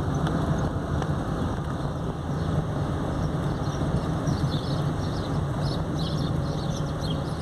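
Car driving slowly on a paved street, heard from inside the cabin: a steady low engine hum with road and tyre noise.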